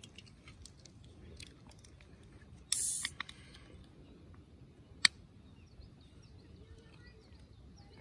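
Quiet outdoor ambience with faint bird chirps and a few small clicks. A short, loud hissing rustle comes about three seconds in, and a single sharp click about five seconds in.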